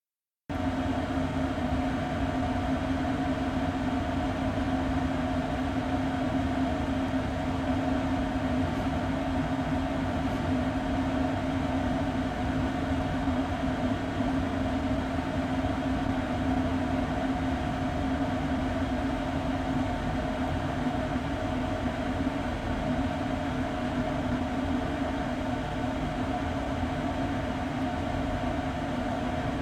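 Steady hum of a ventilation air duct: a low rumble with two steady tones over a rushing haze, starting suddenly about half a second in and holding unchanged.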